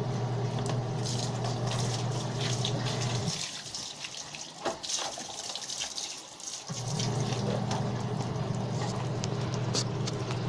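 Water sloshing and splashing as clothes are scrubbed by hand in a basin of soapy water, with a garden hose running into it. Under it a steady low hum cuts out about three seconds in and comes back near seven seconds.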